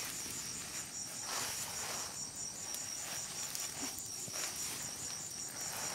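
Night insects, crickets among them, chirring in a steady, evenly pulsing high trill, with a few soft swishes of noise coming and going.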